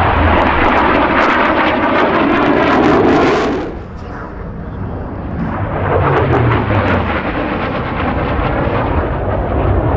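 Military jet aircraft flying past, its engine noise loud until about three and a half seconds in, then falling away and building again.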